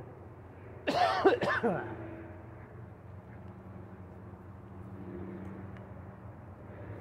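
A person coughing or clearing their throat close to the microphone, once and briefly, about a second in. Under it, a faint steady low drone from the distant approaching train.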